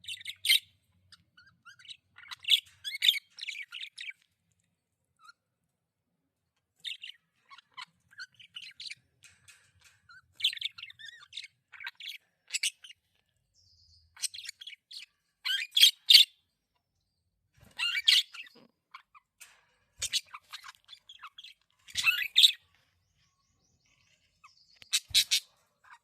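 Budgerigars chirping in short, high-pitched bursts, with brief pauses between them.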